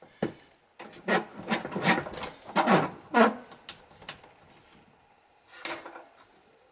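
A sharp click, then a run of quick rasping scrapes and rubs on the motorcycle fork leg, some with a squeak, and one more scrape near the end: hand work on the fork seal housing.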